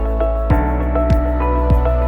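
Background music: sustained melodic notes over a steady low drum beat, about one and a half beats a second.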